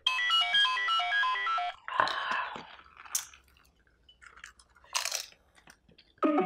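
A short run of bright electronic notes lasts about two seconds. It is followed by crisp golgappa shells being bitten and chewed, in a few separate crunching and slurping noises, and light mallet-percussion music starts just before the end.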